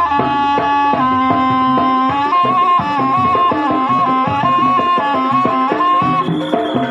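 Jaranan music: a shrill reed shawm (slompret) plays a stepwise melody of held notes over busy hand-drum (kendang) rhythm and gong-chime strokes. The shawm drops out near the end while the drumming carries on.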